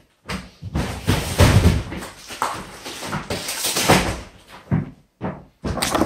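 Rustling and knocking from handling, with heavy low thumps about a second and a half in and a few short knocks near the end.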